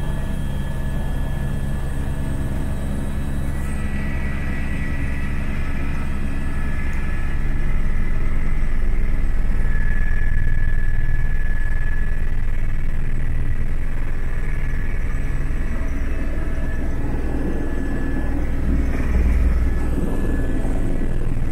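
Aircraft engine running steadily, heard from inside the cabin: a low droning hum with a faint steady whine above it, swelling a little about a third of the way in.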